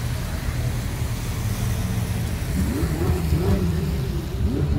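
Ferrari sports car engine revved in several quick blips, its pitch climbing and dropping, over a steady low rumble of the slow-moving parade cars.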